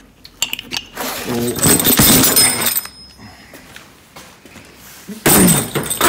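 Clattering and clinking of a three-point seat belt assembly's metal hardware being picked up and handled, in two loud bursts: one about a second in lasting roughly two seconds, and a shorter one near the end.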